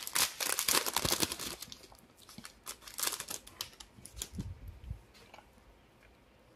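Foil wrapper of a 2023 Bowman baseball card pack crinkling as the cards are pulled out, densest for about the first two seconds. Then scattered quieter clicks and rustles of the card stack being handled, dying away about five seconds in.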